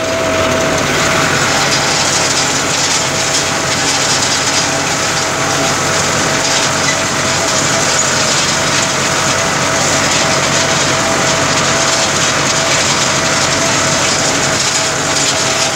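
Farm tractor engine running steadily at working speed while pulling a rotary hay rake through cut alfalfa, with a steady high whine over the engine noise.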